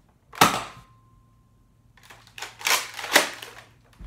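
Nerf dart blaster firing: a single sharp snap about half a second in, then a run of hard plastic clacks and rattles from the blaster's mechanism a couple of seconds later.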